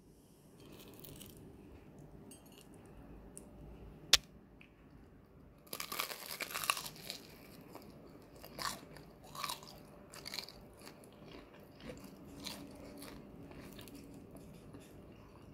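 Biting into a crunchy breadcrumb-coated fried doughnut with a vegetable filling: a dense crackling crunch about six seconds in, then crisp chewing crunches every second or so. A single sharp click about four seconds in is the loudest sound.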